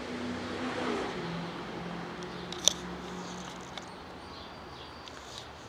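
Street noise of a passing motor vehicle, swelling to a peak about a second in and easing off, with a steady low hum and one sharp click about two and a half seconds in.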